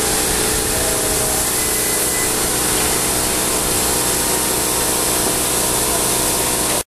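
Steady, loud hiss with a faint hum under it from the Monon 561, a live-steam Mountain-type (4-8-2) model locomotive standing in steam.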